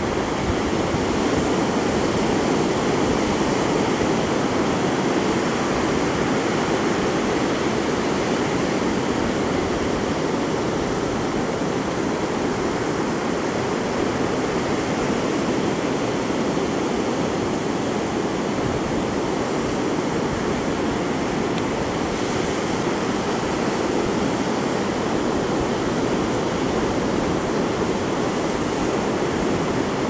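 Ocean surf: small waves breaking and washing up over wet sand, a steady, unbroken rush of water.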